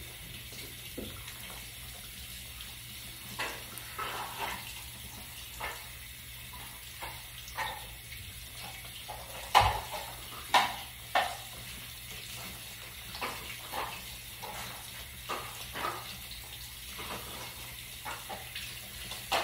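Water running from a bathroom faucet into the sink while hands are rubbed and rinsed in the stream, with scattered splashes; a few louder splashes come about halfway through.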